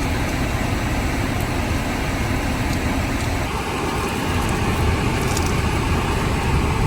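Steady low rumble and hiss of a car interior, with a few faint ticks.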